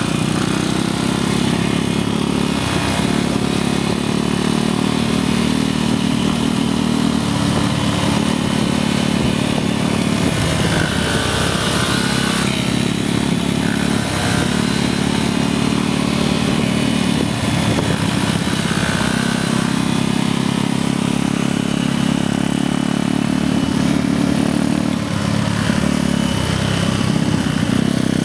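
Motorcycle engine running while riding, its note dropping and picking up again several times with the throttle. Rushing wind noise on the microphone sits over it.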